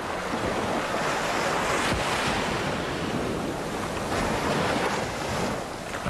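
Surf washing up on a sandy beach, a steady rush of breaking waves.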